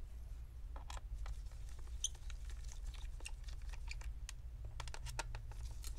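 Scattered light clicks and taps as gloved hands handle small screws and a screwdriver against a laptop's plastic bottom cover, over a steady low hum.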